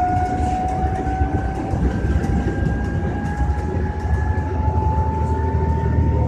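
New Flyer DE40LFR diesel-electric hybrid bus picking up speed: the whine of its electric drive rises slowly and steadily in pitch over a low engine rumble.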